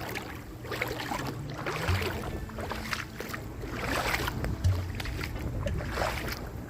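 Water moving and splashing, a noisy wash that swells and fades, with a soft low thud about every three seconds.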